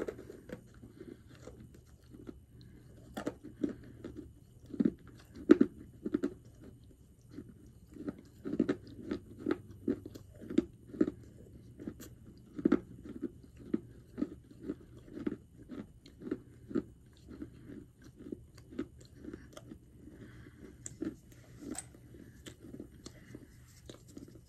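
A person chewing a crunchy piece of edible clay, a steady run of crunches about two to three a second.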